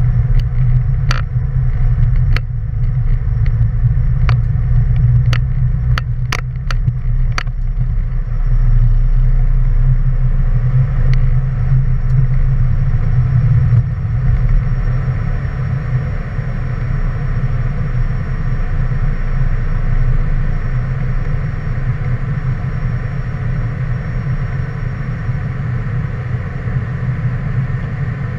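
Cessna Citation jet running, a loud, steady deep rumble, with about ten sharp clicks in the first eight seconds.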